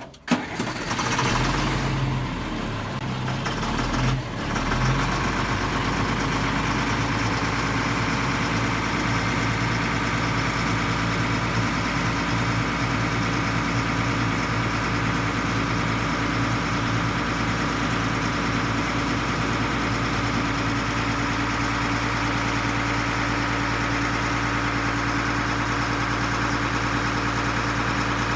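M1078 LMTV military truck's diesel engine starting up, its pitch unsettled for the first few seconds, then running at a steady idle.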